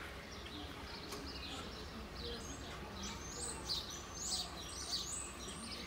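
Small birds chirping: a run of quick, high chirps that slide down in pitch, thickest in the second half.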